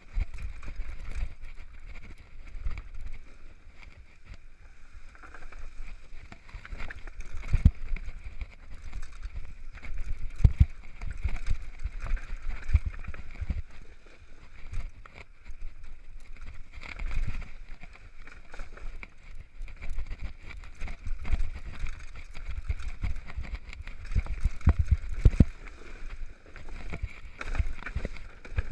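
Downhill mountain bike riding fast over a dirt trail, heard from an on-board action camera: low rumble of wind buffeting and tyres on dirt, with frequent sharp knocks and rattles as the bike hits bumps and landings.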